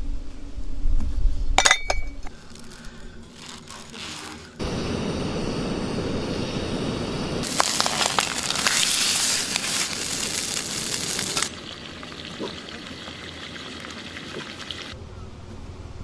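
Glass bottles clinking in a metal ice bucket, then a salmon fillet sizzling loudly in a frying pan.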